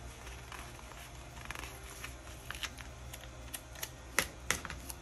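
Scissors snipping a sticker sheet: a scatter of light clicks and rustles, with two sharper snips a little after four seconds in.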